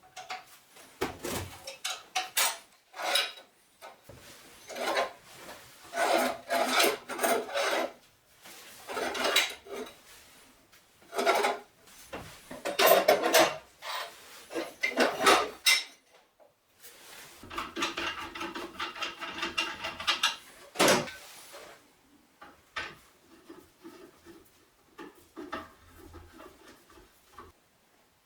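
Irregular hand scraping and rubbing strokes on metal, with some clatter and a little metallic ringing, like filing or working a metal part by hand.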